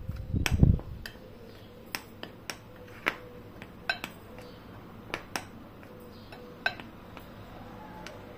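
A metal spoon stirring flour in a glass bowl, clicking against the glass in scattered, irregular ticks. A dull low thump in the first second is the loudest sound.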